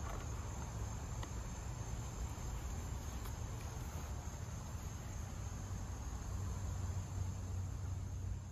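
Crickets trilling steadily in a continuous high-pitched drone, over a low rumble.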